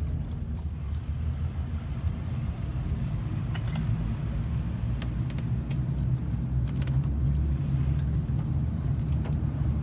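A vehicle engine idling: a steady low rumble, with a few faint clicks.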